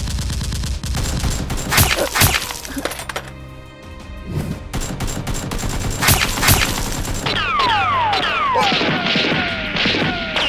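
Gunfire sound effects dubbed over background music: a dense crackle of shots with two loud hits about two seconds in, two more sharp shots about six seconds in, then a run of overlapping falling whistling tones.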